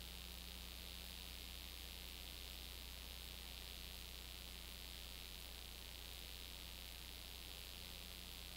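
Steady low electrical hum with a constant high hiss and nothing else: the empty soundtrack of a silent 8mm home movie transfer.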